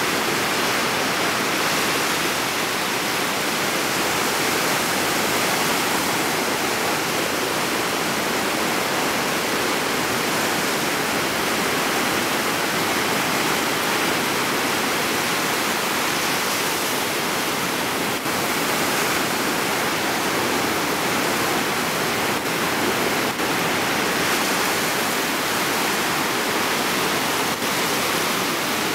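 Sea surf breaking and washing up a sandy beach: a steady rushing of water with no let-up.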